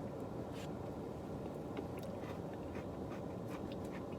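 Steady hiss of a car's air-conditioning blower, with small scattered clicks and taps of eating: a spoon in the ice-cream cup and chewing.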